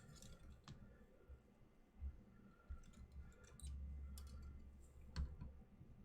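Faint scattered clicks and light taps of small tools and parts being handled while replacement transistors are positioned and soldered onto an amplifier circuit board, over a low hum.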